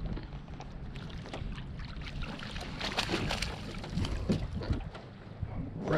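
Water splashing and dripping as a landing net scoops up a hooked flounder and lifts it from the water, mostly about three to four seconds in. Under it is a steady low wind rumble on the microphone.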